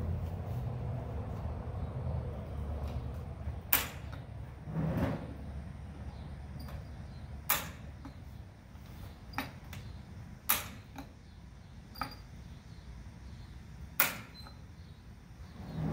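Gas grill being lit: the burner knobs turned and the igniter snapping, four loud sharp clicks a few seconds apart with a few fainter clicks between.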